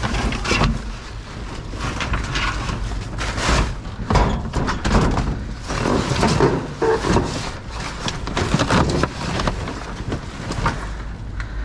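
Scrap being handled by hand: an irregular run of knocks, clatters and scrapes as junk is pulled and worked about.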